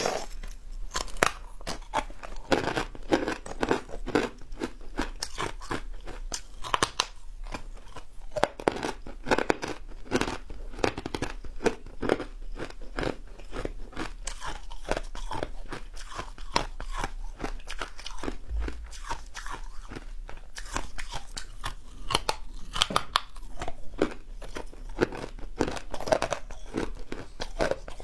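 A person biting and chewing crunchy fried food, with dense irregular crunches and crackles that go on without a break.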